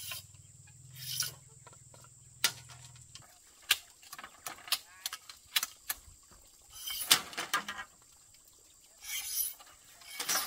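Irregular sharp knocks and taps, about a dozen, clustered most densely around the middle, with a few short noisy scrapes.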